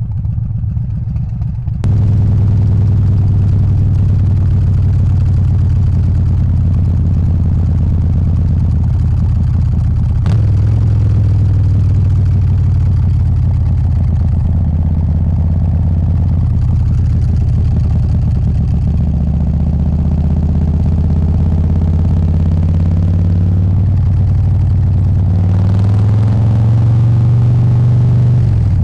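Harley-Davidson Softail's 124 cubic inch S&S Evo V-twin engine running under way, a steady low exhaust note. It gets louder about two seconds in and rises in pitch as the bike accelerates near the end.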